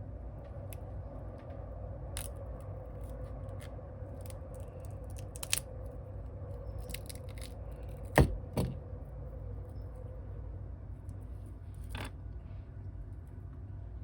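A few sharp clicks and light scrapes of small hand tools on phone parts during an iPhone repair, over a steady low hum. The loudest click comes about eight seconds in.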